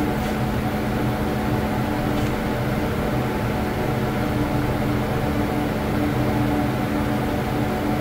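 Steady hum of running fan motors with a low, even drone and an airy hiss.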